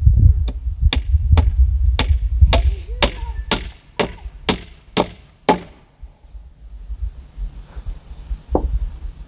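Hammer driving nails into a rough-sawn cedar framing stud: about a dozen quick, sharp strikes at roughly two a second that stop about halfway through, then one more knock near the end, over a steady low rumble.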